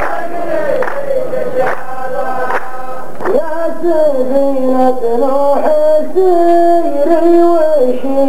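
Men's chorus of a qalta sung-poetry duel chanting in unison to slow, even hand claps, a little over one clap a second. About three seconds in the claps stop and a single man's voice takes over through a microphone, singing alone in long held notes.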